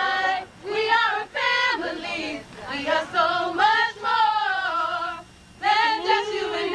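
People singing, a woman's voice most prominent, in sung phrases with short breaks between them.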